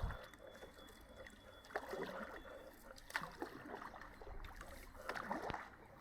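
Faint water trickling and dripping from canoe paddle strokes on a river, with a few soft splashes as the blade dips.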